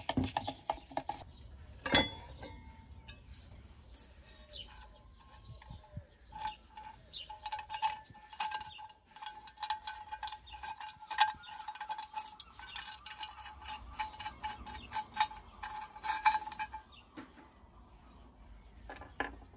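Metal clinking as an old steel fire-bell housing is taken apart: a screwdriver works a screw, then the loose cover and screws give a long run of small clicks and taps over a faint metallic ring.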